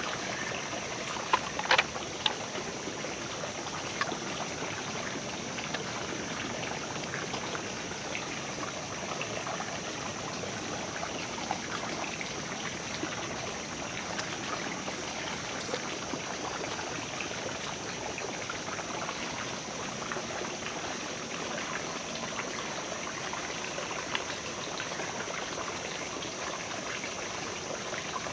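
Creek water flowing steadily, with a few sharp clicks of gear being handled about two seconds in.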